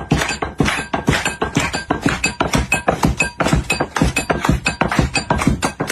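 Coffee beans being pounded in a mortar and pestle: fast, rhythmic clinking strikes, about four or five a second, with a light ringing tone.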